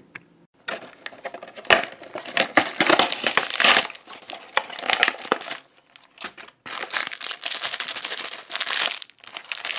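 Toy packaging being torn open and crinkled by hand, in two stretches of crackling and ripping with a short pause between.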